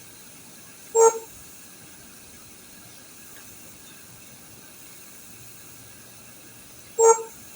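Two short, identical beeps about six seconds apart, over a steady faint hiss.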